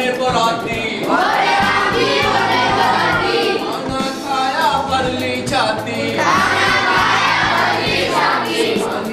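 A group of children singing together in unison, with many voices heard as one.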